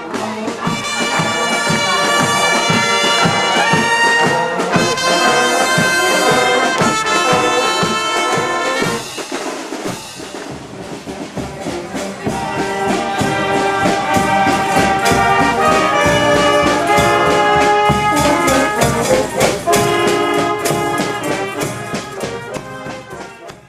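Brass band playing a tune, trumpets and trombones holding notes over a steady drum beat; it fades out at the end.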